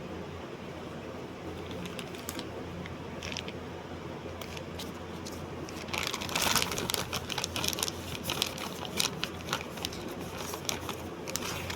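Irregular clicking and rustling over a steady low hum, sparse at first and much busier from about six seconds in.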